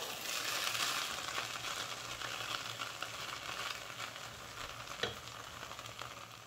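Plastic spatula stirring and fluffing just-cooked vegetable pulao in a metal pot, a steady crackly hiss that fades toward the end, with a light knock about five seconds in.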